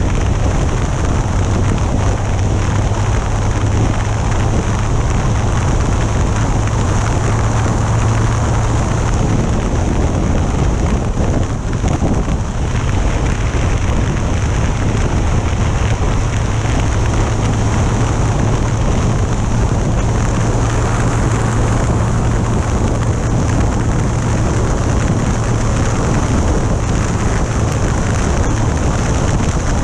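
Yamaha FJR1300A motorcycle at road speed: steady wind noise over the mounted action camera's microphone, with the inline-four engine's even drone beneath it.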